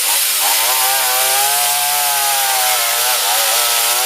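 Small engine of a motorized oil palm cutting machine running hard, its speed dipping briefly just after the start and again about three seconds in, then revving back up.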